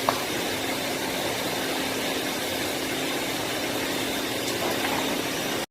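Doosan BM2740 gantry machining center's spindle running steadily: a constant whir with a steady hum over hiss, and one light click just after the start.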